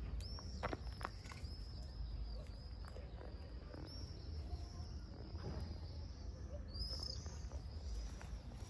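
Outdoor ambience: thin, high chirping notes repeat throughout and peak near the end, over a steady low rumble, with a few sharp clicks in the first second.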